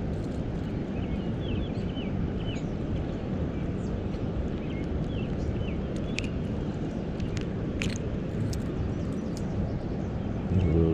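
Steady low rushing outdoor noise with a small bird chirping again and again. A few sharp clicks come as the spinner's hook is worked free of a smallmouth bass, and a short louder burst comes near the end.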